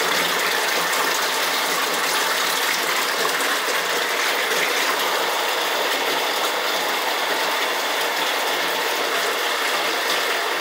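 Submersible sewage grinder pump running steadily, a dense rapid mechanical rattle over rushing water.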